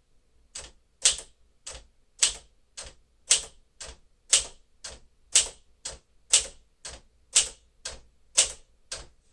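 1954 Smith-Corona Silent-Super manual typewriter being typed on at a slow, even pace. Its typebars strike the platen in sharp clacks, about two keystrokes a second.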